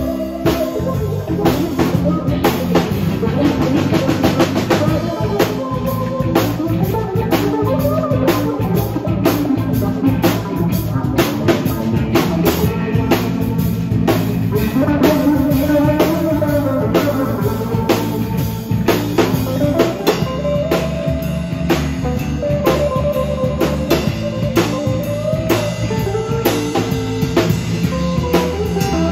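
Live rock band playing an instrumental passage with no singing: two electric guitars over electric bass and a drum kit keeping a steady beat.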